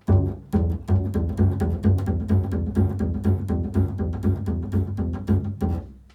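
Improvised low-register string music: a run of quick, sharply attacked low notes, about three to four a second, that stops near the end.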